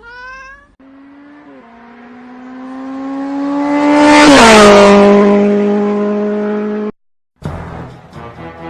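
A car passing by. Its engine note grows louder and climbs in pitch, drops sharply in pitch as it goes past at its loudest, then holds steady and cuts off abruptly.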